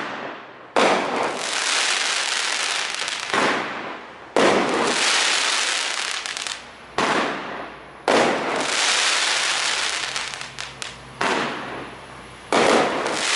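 Shogun Sizzler 16-shot 500-gram fireworks cake firing about seven shots in a row. Each breaks with a sudden bang into a loud sizzling crackle that fades over a second or two, with scattered sharp pops in one break just past the middle.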